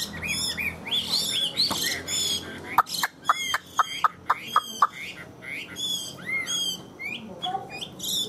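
Chinese hwamei calling: short arched whistled notes and higher chirps. Near the middle comes a quick run of about eight loud arched notes, about four a second.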